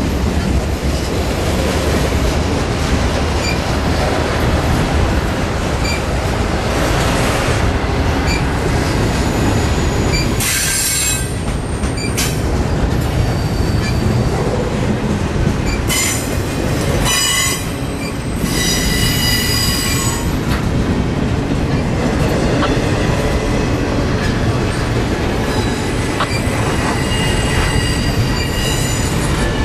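Freight train cars rolling slowly past, autorack cars and then double-stack container well cars, in a steady rumble. Several high-pitched wheel squeals come and go over it, the strongest around the middle and another near the end.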